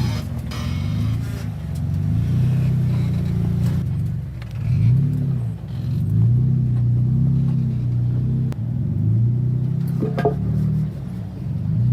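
Simulated truck engine sound of an RC scale crawler, a low engine rumble revving up and down again and again. A short click sounds about ten seconds in.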